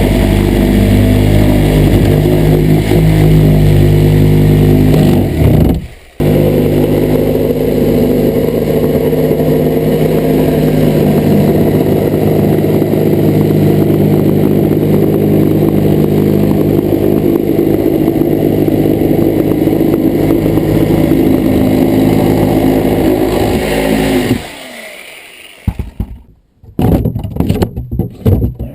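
Ridgid corded reciprocating saw (Sawzall) running and cutting. It stops briefly about six seconds in, starts again, and shuts off near the end, followed by a few scattered knocks.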